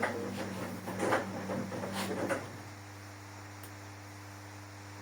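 A few sharp clicks and knocks over a voice, then a steady low electrical hum.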